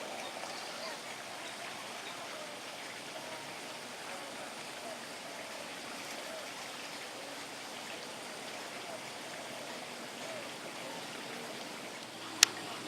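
Steady rush of running water, like a stream or small waterfall, with one sharp click near the end.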